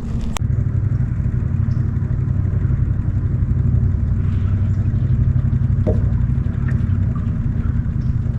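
Small boat motor running steadily at low speed, a low even hum that steps up in strength about half a second in, just after a sharp click.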